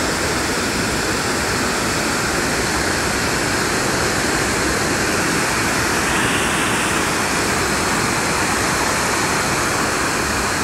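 White water of a mountain stream rushing and splashing over boulders below a waterfall, a loud, steady, unbroken rush of noise.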